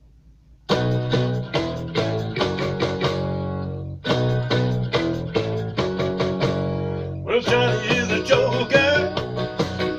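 Song with a guitar intro that starts under a second in after near silence, with stop-and-go strummed chords; a singing voice comes in about seven seconds in.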